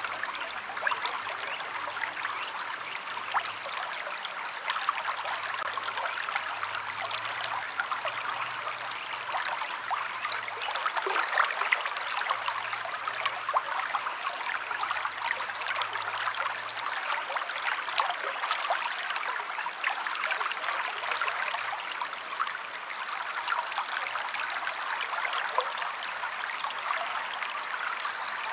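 Stream water flowing steadily, a dense trickling and splashing with no break.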